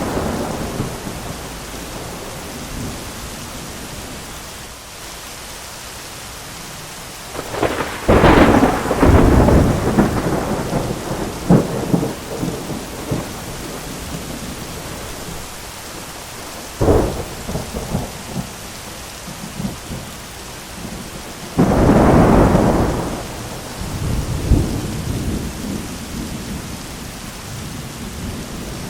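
Thunderstorm: steady heavy rain with repeated thunder. A sharp crack rolls into crackling rumbles about a third of the way in, another sudden strike crackles just past halfway, and a loud clap about three quarters through trails off into rumbling.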